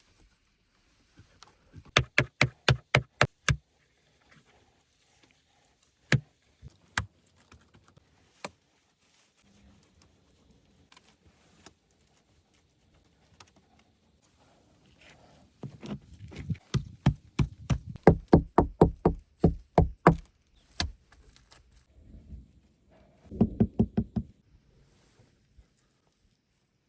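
Three quick runs of sharp knocking strikes, about six a second, with a few single knocks between them. The longest run comes in the second half.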